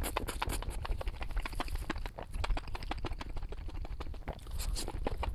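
Close-up eating sounds: chewing with many quick, irregular crunches and mouth clicks, several a second.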